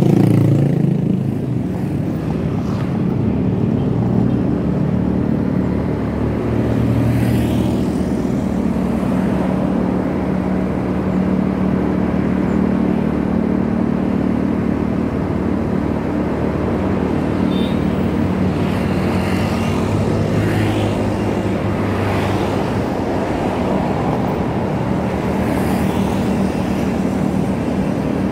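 Motorcycle engine running steadily while riding on the road, with road noise; its low drone shifts a little in pitch a couple of times as speed changes.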